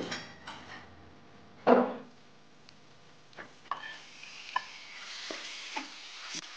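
A few sharp knocks in the first two seconds, the loudest just under two seconds in. Then raw chicken pieces hit hot oil and curry paste in a honeycomb-textured stainless wok and sizzle, growing louder, while a wooden spatula knocks and scrapes against the pan as they are stirred.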